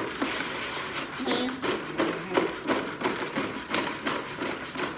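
Close-up eating sounds: chewing and mouth clicks near the microphone, with a brief snatch of voice about a second and a half in.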